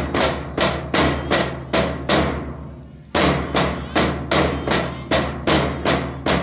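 Marching bass drums struck with padded mallets in a steady beat, about two and a half strokes a second. The beat drops out for about a second just after two seconds in, then picks up again at the same pace.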